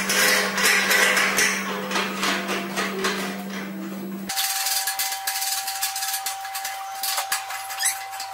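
Repeated light metallic clinks and taps from turning a bolt with an Allen key on a steel strap clamped around a galvanized steel drum. Under them runs a steady background tone that jumps to a higher pitch about four seconds in.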